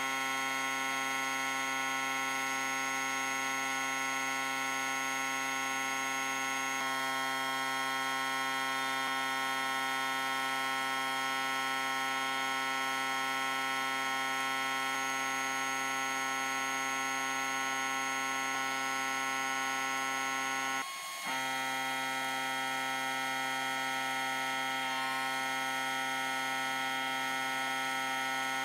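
Sandblasting cabinet running: a steady, even machine hum that holds its pitch throughout, with a brief break about three-quarters of the way through.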